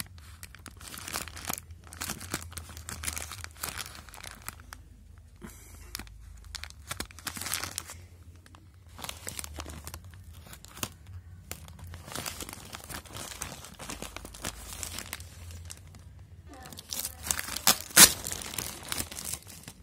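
Plastic courier mailer bag being torn open by hand: irregular crinkling and ripping of the thin plastic and its tape. It grows louder near the end, with one sharp crack.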